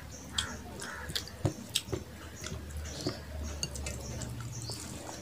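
Wet squelching of rice and chicken curry being mixed and picked up by hand, with a series of short sharp clicks of fingers against the plates.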